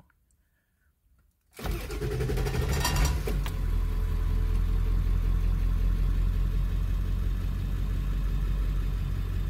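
2001 Ford F-250's 7.3 Powerstroke turbo-diesel V8 starting: near silence, then about one and a half seconds in the engine fires and settles into a steady idle. The start comes right after the fuel system has been primed three times following a fuel pressure regulator spring replacement.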